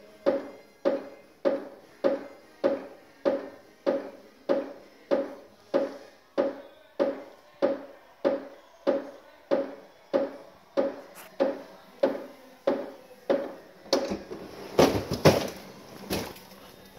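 Whirlpool WRF993FIM refrigerator's ice maker knocking in an even rhythm, about three knocks every two seconds, each with a short ring. The owner puts the fault down to the ice maker and its ice-throwing unit. About two-thirds of the way through, the knocking gives way to a louder, irregular clatter for a couple of seconds, then stops.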